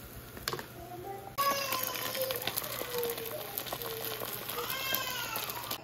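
A house cat meowing. One long, drawn-out call begins about a second and a half in, and a rising-then-falling meow comes near the end. Under it is the faint hiss and crackle of an egg frying in a pan.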